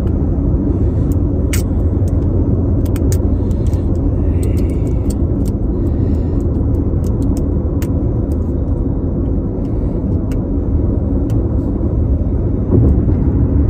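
Steady low road and engine rumble inside a moving car's cabin. Over it come scattered light clicks and short crinkles as hands pick at the shrink-wrap on a sealed disc case.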